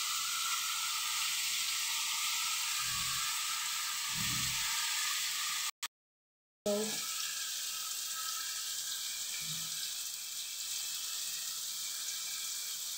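A steady hiss, with two soft low thumps about three and four seconds in, broken by a brief dead-silent gap near the middle.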